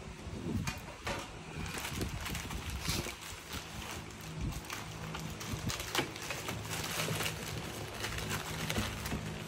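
Clear plastic packaging wrap rustling and crinkling as it is pulled back and cut open, with irregular crackles throughout.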